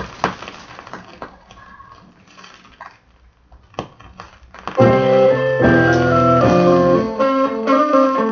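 Keyboard music: a few seconds of sparse clicks and faint notes, then about five seconds in a band of piano-like keyboard chords comes in loudly and holds on, the notes shifting every half second or so.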